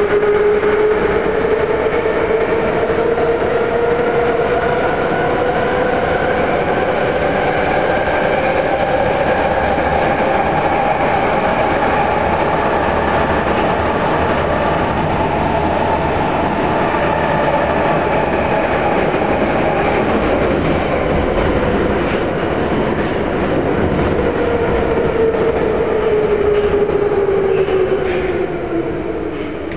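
Inside a Vagonmash 81-series metro car running between stations, heard from the cabin: a drive whine rises in pitch as the train accelerates, holds at speed, then falls as it slows near the end. A steady rumble of wheels on rail runs underneath.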